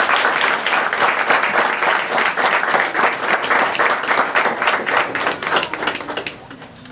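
Crowd of people applauding, a dense patter of many hands clapping that dies away about six seconds in.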